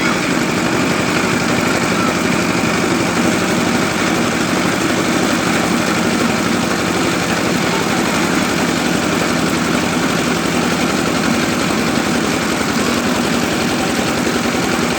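A motor or engine running steadily at an even speed, with a rapid regular pulse.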